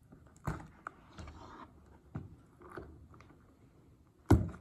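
A leather handbag being handled as its metal push-lock clasp is opened and the flap lifted. A few soft clicks and rustles are followed near the end by one louder knock.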